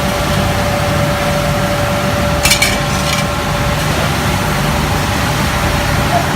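Steady running noise of a glass toughening furnace line: a constant low rumble with a steady hum. A brief high clinking rattle about two and a half seconds in.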